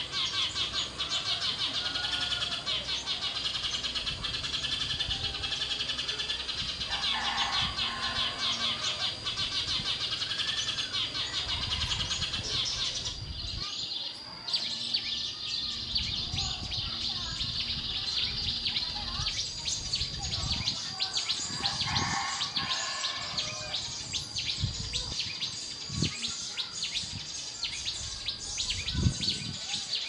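Small wild birds chirping and calling in a tree, over a steady high-pitched shrill that cuts out briefly about halfway through.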